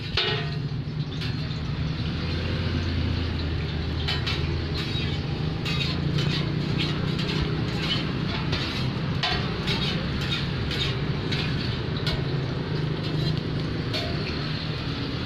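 Martabak deep-frying in a wide pan of hot oil: a steady sizzle with a low steady rumble underneath, broken by frequent sharp clicks and clinks of metal spatulas against the pan.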